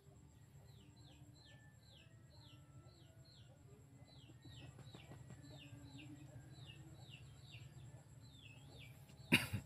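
A bird chirping over and over in short, falling notes, about two a second, over a steady low hum. A single sharp knock comes near the end.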